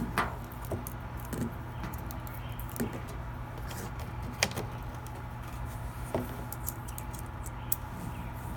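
Phillips screwdriver clicking and scraping against screws as they are driven back in by hand, with scattered sharp taps, the clearest about halfway through, over a steady low rumble.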